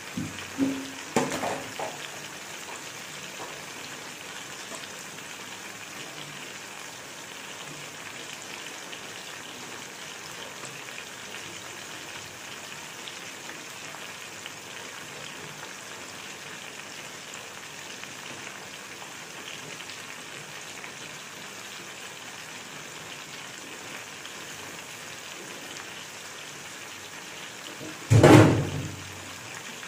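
Steady sizzle of potatoes and spice paste frying in a wok over a low flame. There are a few clicks in the first two seconds and one loud knock near the end.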